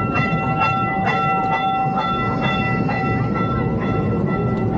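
Amusement-park ride train running along its track, its wheels clacking over rail joints at about two a second over a steady rumble, with a high steady whine held underneath.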